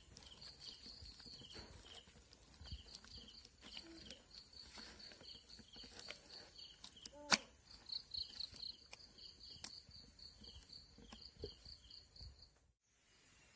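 A hand squishing and kneading soft jackfruit dough in a steel bowl, faint wet squelches, against a steady high insect drone and rhythmic cricket chirps repeating several times a second. One sharp knock stands out about seven seconds in, and the sound cuts off shortly before the end.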